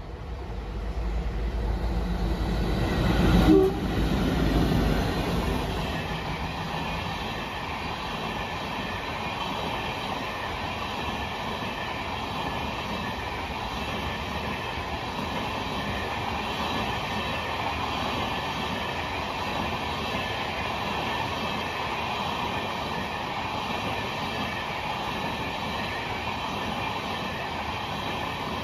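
Two diesel locomotives passing at speed, their low rumble peaking about three and a half seconds in. A long rake of LHB passenger coaches follows with even, continuous wheel-on-rail rolling noise.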